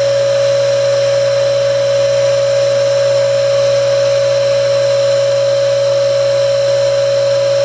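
A small electric motor running at a steady speed, giving a loud, unchanging whine with one strong pitch over a low hum.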